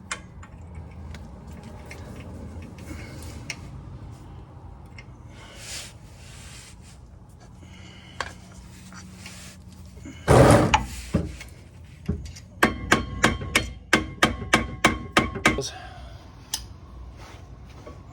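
Hand tools working on metal car parts: a loud clatter about ten seconds in, then a quick run of about fifteen sharp metallic strikes over some three seconds.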